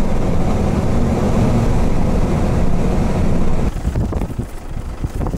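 Car driving along a dirt road, heard from inside the cab: a loud, steady low rumble of tyres and engine. About two-thirds of the way through it drops a little and turns more uneven.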